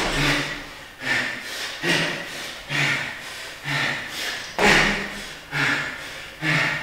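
A man's hard, half-grunted breathing, about one forceful breath a second, from the exertion of repeated barbell lifts.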